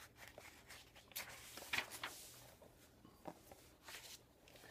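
Faint rustle and a few soft taps of a hardcover book's page being turned by hand.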